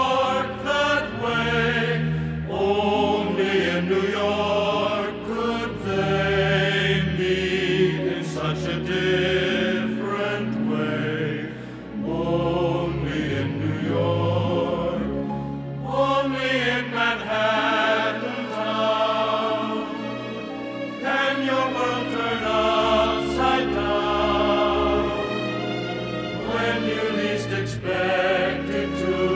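Music with a choir singing.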